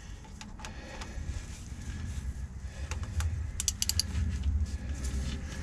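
Ratchet wrench with a Torx bit straining on the tight crankshaft sprocket bolt, a quick run of ratchet pawl clicks a little past halfway, over a low rumble.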